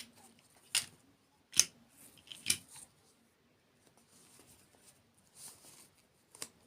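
Close-miked eating sounds: three crisp, crunchy bites into a hard dessert in the first few seconds, then softer crackly chewing and one more crunch near the end.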